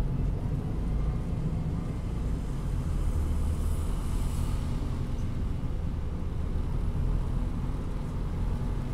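Steady low rumble of city street traffic, a vehicle engine running close by, with a faint hiss near the middle.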